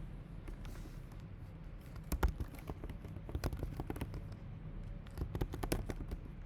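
Computer keyboard keys being typed in short irregular runs of clicks, the loudest about two seconds in, over a steady low hum.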